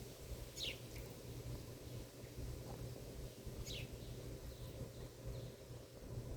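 Bird chirps: a few short calls that slide down in pitch, two clear ones about half a second in and near the middle, then fainter ones, over a steady low outdoor hum.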